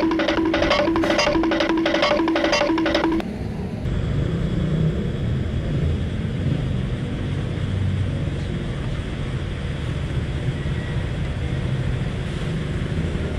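Background music with a steady beat for about the first three seconds, cutting off suddenly. Then a steady low hum and rush: a petrol pump dispensing fuel through the nozzle into a motorcycle's fuel tank.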